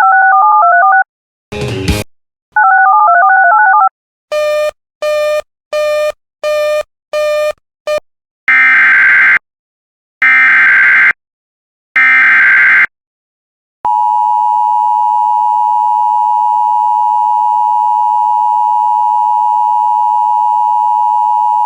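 Electronic beeping chimes and a run of short tone pips, then three one-second bursts of Emergency Alert System SAME header data. These are followed by the EAS two-tone attention signal, held steady for about eight seconds to announce an incoming warning.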